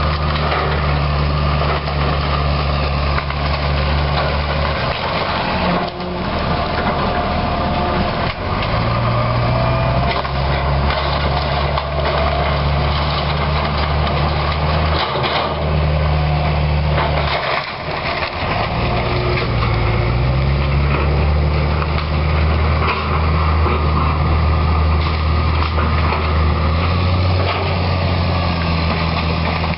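Diesel engine of a Hitachi EX200LC excavator working under load, its note dropping and rising again several times. Wooden framing and boards crack and break under it, with a few sharper cracks about six, eight and eighteen seconds in.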